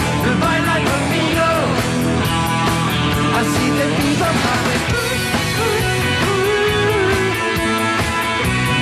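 Live rock band playing: electric guitars over drums, with a steady fast hi-hat beat and bending, held guitar notes.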